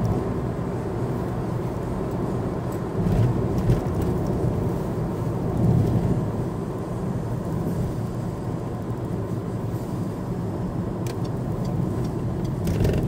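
Car driving along a road, heard from inside the cabin: a steady low rumble of engine and tyres, swelling briefly a couple of times.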